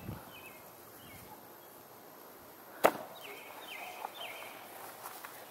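A plastic frisbee landing on the lawn with a single sharp knock about three seconds in, over quiet outdoor ambience with a few short, falling bird chirps.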